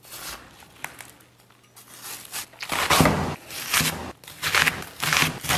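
Chinese cleaver chopping napa cabbage on a wooden chopping block: crisp crunching cuts, each ending in a knock of the blade on the board. The strokes come about one every second or less from about halfway through, after a quieter start with a single tick.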